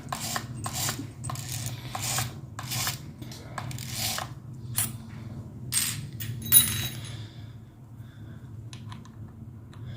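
Small steel drill bits and a chuck key being handled, clinking and rattling together in a series of light metallic clicks. One clink past the middle rings briefly.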